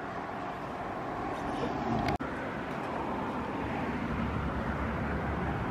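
Road traffic passing close by: a steady rushing noise of tyres and engines with a low rumble, growing louder. It is broken by a brief dropout about two seconds in.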